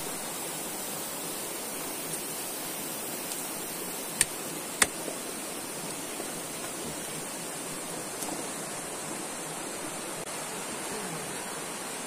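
Waterfall rushing steadily, with two sharp clicks about half a second apart some four seconds in.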